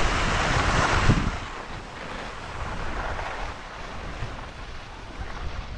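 Rushing noise of wind on the microphone, loudest for the first second or so, then a softer steady rush.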